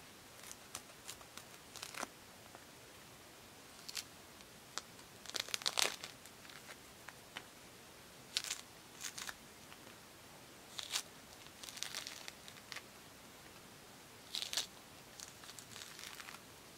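Mandarin orange peel being torn off the fruit by hand, close up: short, crisp tearing and crackling of the rind in irregular bursts, loudest about six seconds in.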